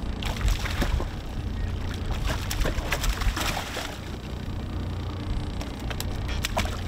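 Water sloshing and splashing at the side of a boat as a hooked bonefish is brought alongside, with scattered knocks over a low steady rumble.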